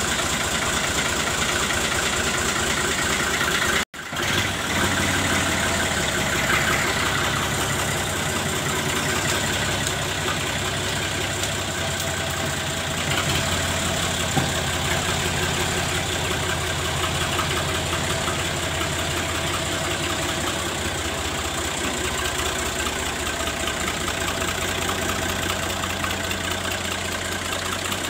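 Fiat 480 tractor's original three-cylinder diesel engine idling steadily, with a brief break in the sound about four seconds in.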